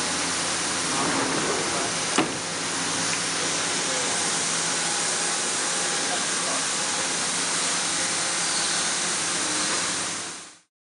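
Steady machine-shop background noise, an even hiss over a low hum of running equipment, with one sharp click about two seconds in. The sound fades out near the end.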